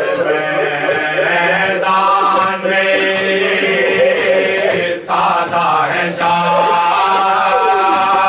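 Men's voices chanting a marsiya, a Shia elegy in Urdu, as a group with no instruments: long held sung notes over a steady low note, with a brief break for breath about five seconds in.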